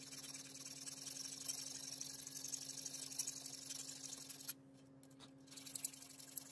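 Round file rasping back and forth against a brass knife fitting held in a vise, a fine dry scraping that pauses for about a second two-thirds of the way through, over a steady low hum.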